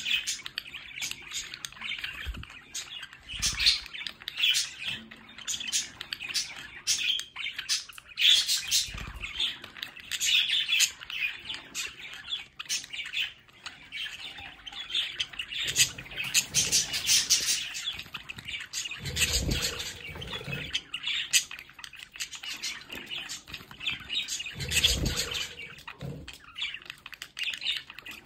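A flock of budgerigars chattering and chirping non-stop in quick, high warbles, with a few soft low thumps in the second half.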